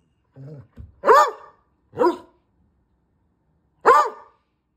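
A dog gives three short single barks, about one and two seconds apart. He is barking at a cat that is keeping his ball from him.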